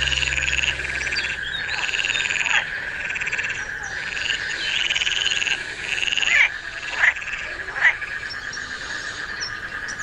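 Frogs croaking: pulsed, rattling calls repeat every few seconds over a steady chorus. Three short, sharp falling calls, the loudest sounds, come between about six and eight seconds in.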